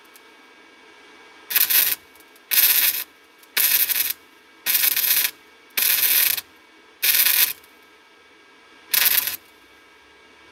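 Titanium Easy-Flux 125 flux-core wire welder's arc crackling in seven short bursts of about half a second each: a row of short stitch welds on the steel frame.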